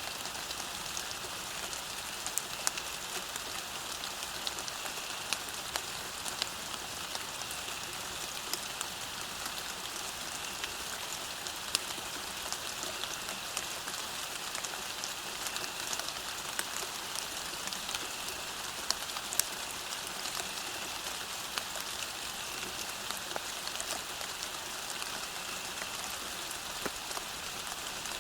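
Steady rain falling on a surface: an even hiss dotted with the sharp ticks of individual drops striking close by.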